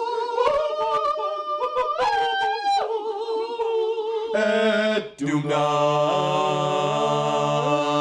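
Men singing unaccompanied. A single sung line moves in pitch for about four seconds; then, after a brief break, several voices hold a sustained chord over a low note while the upper parts shift step by step.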